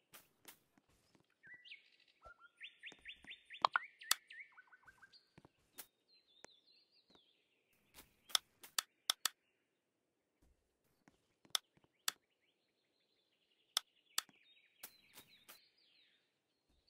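Small birds chirping in quick trilled phrases, twice, with scattered sharp clicks, louder than the chirps.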